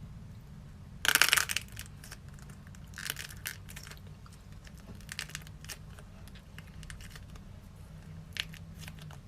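Small hard objects clattering: one loud rattle about a second in, then scattered clicks and clacks in short clusters.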